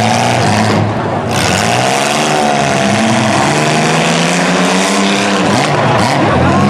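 Several demolition derby cars' engines revving and running together, their pitch rising and falling as the drivers work the throttle.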